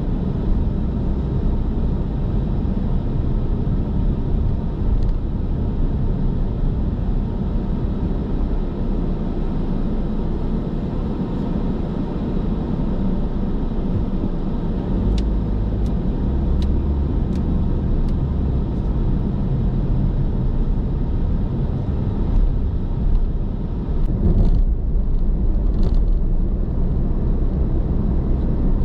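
Steady road and engine noise of a car cruising at highway speed, heard from inside the car: an even low rumble with tyre hiss. A few faint ticks come about halfway through.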